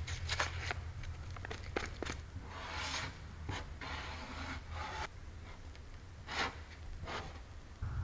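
Plastic body-filler spreader scraping and smearing freshly mixed body filler, first on a mixing board and then over a car's dented quarter panel, in a series of short irregular scrapes with a few clicks, over a low steady hum.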